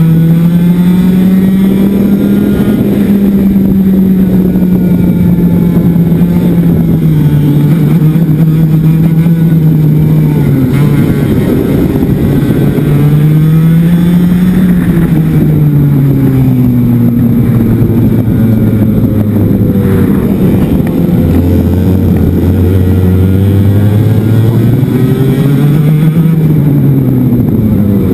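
Racing kart's two-stroke engine heard onboard, its pitch climbing as it accelerates down the straights and dropping off into each corner, several times over, with wind on the microphone.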